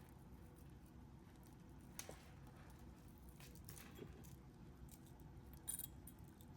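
Near silence: room tone, with a faint light click about two seconds in and another short click near the end.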